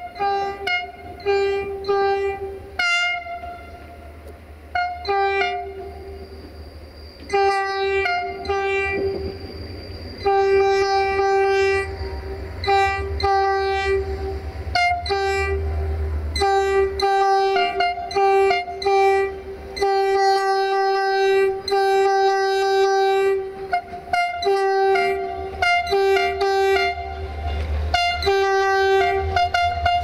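Diesel locomotive 64-1000-0 sounding its two-tone horn again and again in a rhythmic show of short and long blasts, switching between a low and a higher note and sometimes sounding both together. The low rumble of the approaching train runs underneath.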